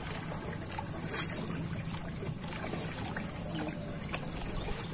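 Canoe being paddled: the paddle splashing in the water and knocking lightly against the hull, with water lapping against the boat. A few faint bird chirps near the end.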